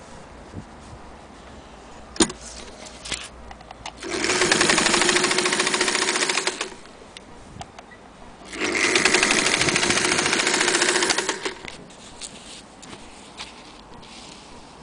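Singer 201K electric sewing machine running in two bursts of about two to three seconds each, a steady hum with fast, even ticking of the needle stitching through fabric. A single sharp click comes about two seconds in.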